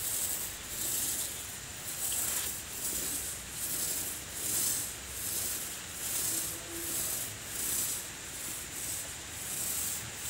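Paint roller on a long pole rolling white paint up and down a cement-rendered house wall: a rhythmic, sticky hiss that swells with each stroke, a bit more than one stroke a second.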